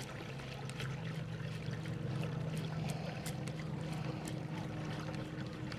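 Steady low hum of a boat's motor, with a few faint ticks over it.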